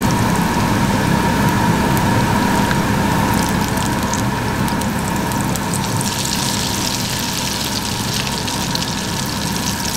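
Falafel patties sizzling as they deep-fry in a pan of hot oil, a steady crackling hiss of bubbling oil with a steady hum underneath.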